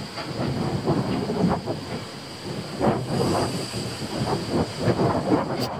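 Wind buffeting the microphone outdoors, an uneven gusting rumble, with a faint steady high tone above it and a sharp click near the end.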